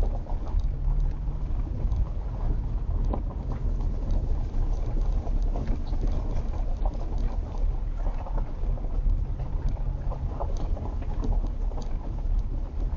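Road noise heard inside a moving vehicle: a steady low rumble with scattered small clicks and knocks.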